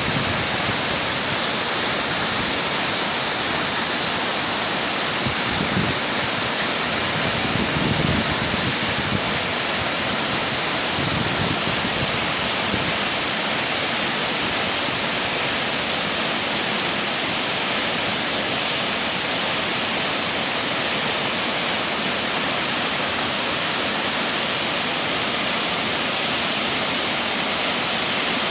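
Waterfall: water pouring and rushing in a steady, unbroken hiss.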